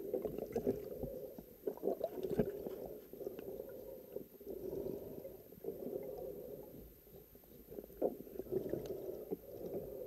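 Muffled underwater noise through a camera's waterproof housing: irregular water rustling and gurgling with a few soft knocks as the diver moves along the bottom.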